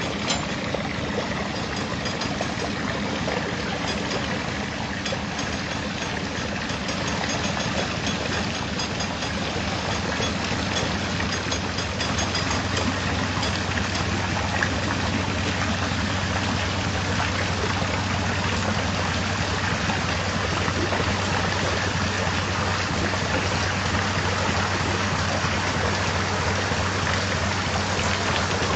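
Narrowboat's inboard diesel engine running at low revs as the boat creeps into a lock, a steady low hum that grows fuller about halfway through, under a constant hiss.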